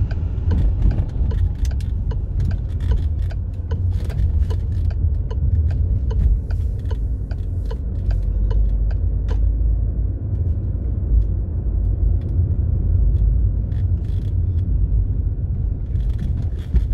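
Steady low rumble of a car's engine and tyres heard from inside the moving car. Over it comes a regular ticking of about three a second, typical of a turn indicator during a turn, which stops about halfway through.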